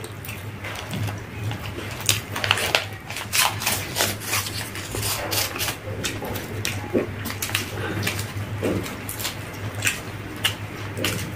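Two people eating egg rolls: irregular wet clicks of chewing and lip smacking, mixed with crinkling of the paper tissue wrappers, over a steady low hum.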